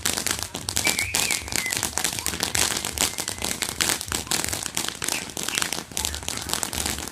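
Fireworks crackling: a dense, rapid, unbroken stream of sharp pops and crackles, like a string of firecrackers or a crackling ground firework going off.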